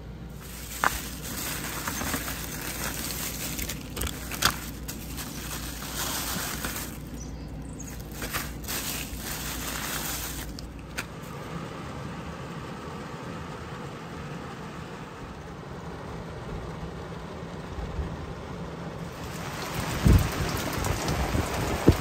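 Rain and wind making an even hiss, with a few sharp knocks. The hiss fades about halfway through and swells again near the end.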